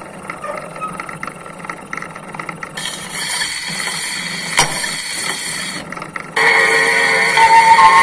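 His Master's Voice wind-up gramophone running with its brake off: a faint mechanical rattle from the spring-driven turntable, then the steel needle set down on the spinning record about three seconds in gives a sudden surface hiss with a click. About six seconds in the recorded music starts loudly through the soundbox over the hiss.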